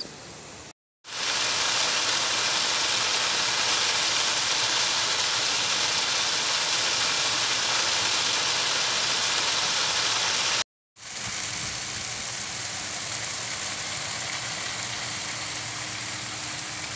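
Artificial rain in a garden: a steady hiss of sprayed water falling on the lawn. It cuts out abruptly twice, about a second in and again near eleven seconds, and is louder in the stretch between the two cuts.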